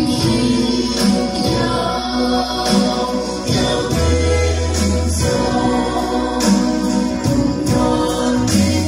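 Worship band performing a hymn: a woman and several men singing together into microphones over amplified electric guitar and bass guitar.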